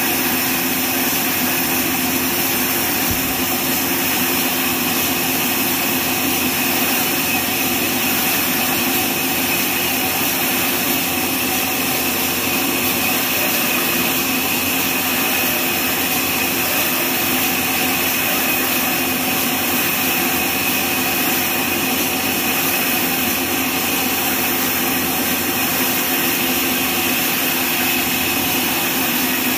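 Horizontal band sawmill cutting lengthwise through a neem log: the band blade and its drive run steadily in the cut, giving a constant, even sound of a few held tones over a hiss.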